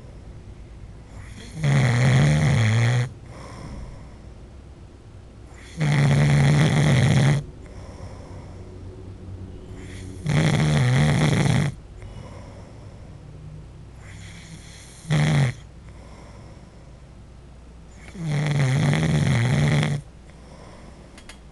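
A man snoring in deep sleep: five loud snores about four seconds apart, each lasting a second or so with a low buzz, the fourth one short. The snoring sounds like a dog's.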